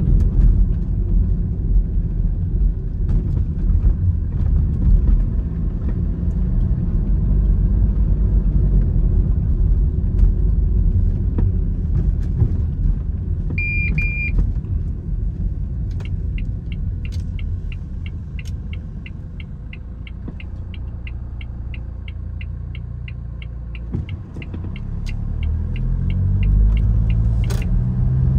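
Road vehicle driving, heard from inside, with a heavy low rumble. A short electronic beep comes about 14 s in. The vehicle then slows and runs quieter while a turn indicator ticks about three times a second. Near the end the engine picks up again as it pulls away, and a sharp click sounds.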